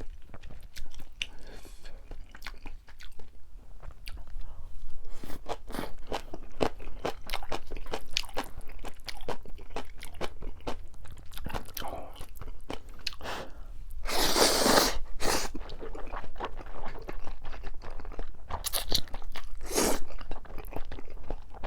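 Close-miked eating: rapid crunching and chewing of Chapagetti noodles and crisp green-onion kimchi. There is a longer, louder noisy burst about two-thirds of the way through and a shorter one near the end.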